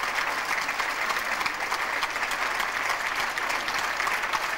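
Large audience applauding steadily, a dense sound of many hands clapping with no let-up.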